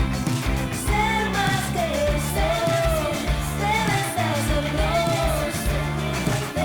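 Rock song with a female lead vocal singing a gliding melody from about a second in, over bass guitar and drums; the bass is heavy in the mix.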